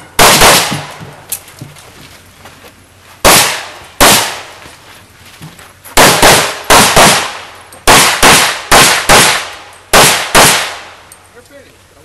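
Pistol shots fired in a practical shooting course of fire: a quick pair near the start, two single shots, then fast strings of shots from about six to ten and a half seconds in, each shot sharp with a short echo.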